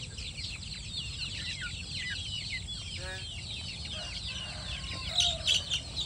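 A flock of kampung chicken chicks peeping all the while in many short, high, falling chirps, with a lower cluck about three seconds in and a few louder calls around five seconds, as the birds feed together.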